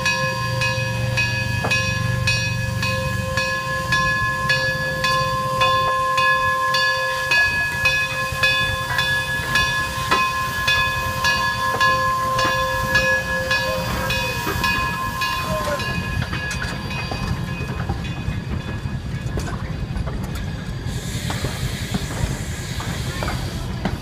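Narrow-gauge coal-fired steam locomotive (D&RGW K-36 Mikado No. 482) standing under steam: a steady whine with several overtones over a regular ticking. A little past halfway the whine bends down and fades, leaving steam hissing, which swells near the end.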